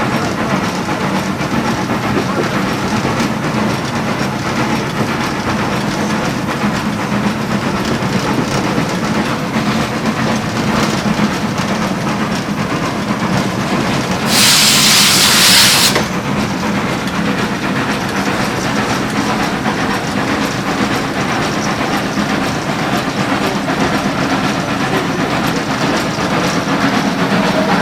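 WWII Kriegslok steam locomotive running, heard from the footplate: a steady mechanical din with wheels clicking over rail joints. About halfway through, a loud burst of steam hiss lasts about a second and a half.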